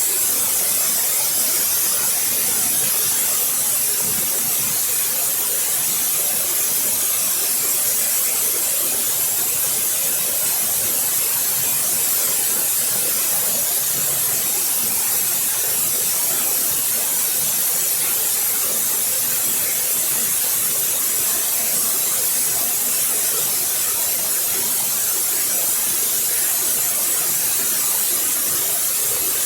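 Waterfall: water falling and splashing in a steady, unbroken hiss, strongest in the high frequencies.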